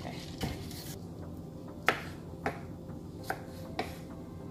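About five sharp clicks and knocks from handling a glass mason jar with a metal screw lid and a knife on a wooden cutting board, the loudest a little under two seconds in, over a steady low hum.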